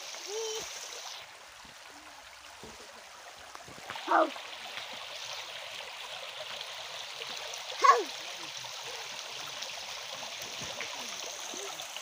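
Shallow forest stream running over stones, a steady rush of water. Two short, loud shouts break in, about four seconds apart.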